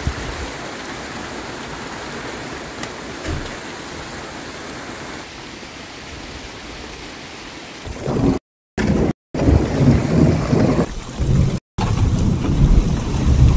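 Thunderstorm at night: steady rain with a low rumble of thunder. About eight seconds in, the thunder grows louder and rougher, and the sound drops out completely for brief moments two or three times.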